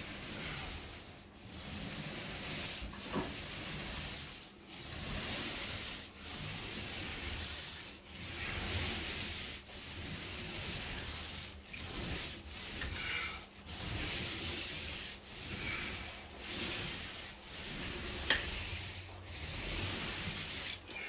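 Paint roller on an extension pole rolling paint across a plasterboard ceiling: a wet rub in repeated back-and-forth strokes, about one every second and a half. A single sharp click near the end.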